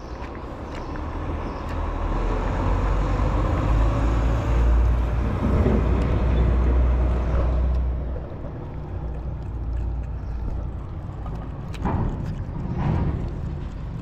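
A motor vehicle passes along the street: a broad rumbling noise swells over several seconds, peaks mid-way and fades again. A couple of short knocks come near the end.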